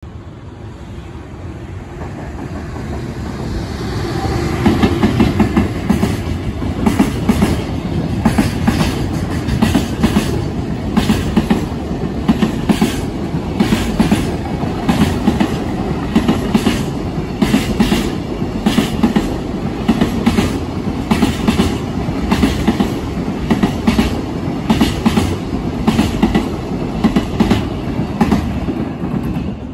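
Fukuyama Transport container freight train passing at speed. The rumble builds over the first few seconds, then the wagons' wheels click over the rail joints in a steady rhythm.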